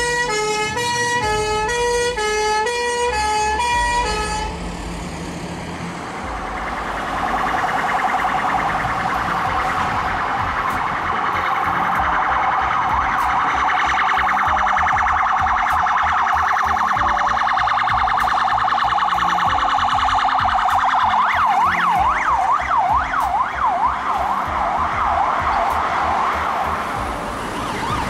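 Emergency vehicle sirens: a two-tone hi-lo siren alternating steadily for the first few seconds, then after a brief lull a continuous wavering siren that switches to a fast yelp, sweeping rapidly up and down, about three quarters of the way through.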